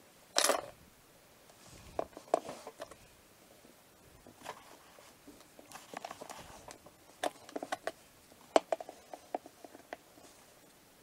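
Scattered small clicks and taps of a modelling tool and fingers against a tabletop while modelling clay is cut and shaped, with a louder brief noise about half a second in and a denser run of clicks in the second half.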